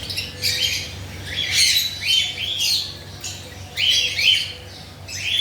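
Cockatiels squawking: repeated harsh, high calls about two a second, with a short lull midway.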